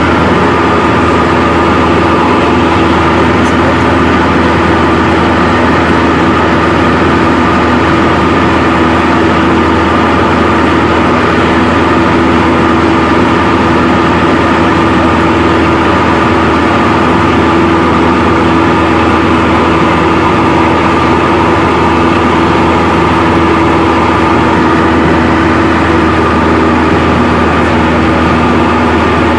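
Single-engine light aircraft's piston engine and propeller running steadily in flight, heard from inside the cockpit.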